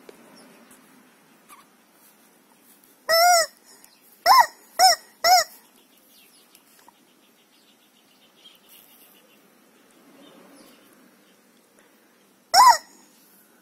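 Rubber screaming chicken toy squeezed, letting out loud honking squawks: one longer squawk about three seconds in, three quick short ones a second later, and one more near the end.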